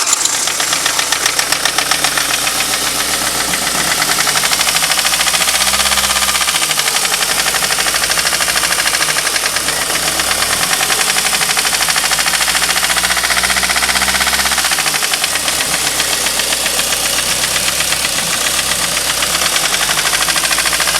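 Ford Focus engine running with a rapid, continuous metallic clacking that keeps pace with the engine, its pitch rising and falling gently twice as the engine is revved lightly. The owner takes the clacking for abnormal and does not know its cause.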